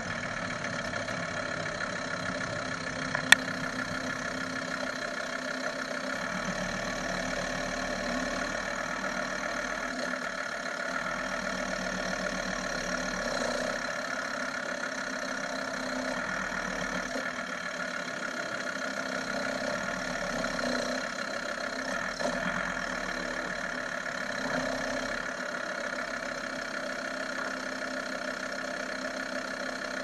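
Volkswagen T4 2.5 TDI five-cylinder diesel running steadily, heard from beneath the van near the gearbox, with one sharp click about three seconds in.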